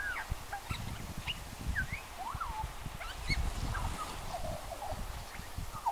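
Australian magpie singing: a run of short whistled and warbled notes that glide up and down in pitch.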